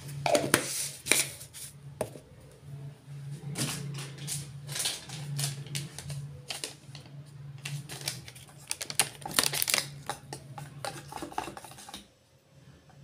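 Steel spoon beating an egg mixture in a steel bowl: rapid, irregular clinks and clicks of metal on metal, stopping near the end.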